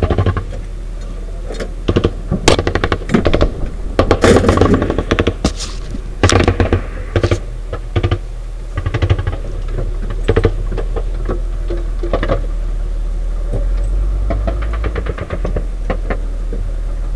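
Bursts of automatic gunfire, several loud short volleys in the first two-thirds that then thin out, over the steady low hum of an armoured vehicle's running engine.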